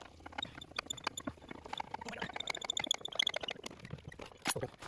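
A run of small metal clicks and clinks from working the jack and tools while the car is lowered. The clicks come thickest and fastest between about two and three and a half seconds in.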